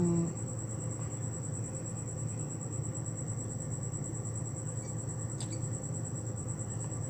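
Steady, high-pitched insect trill, like a cricket, over a low steady background hum. A couple of faint small metal clicks come about five seconds in, as a steel treble hook and split ring are worked by hand.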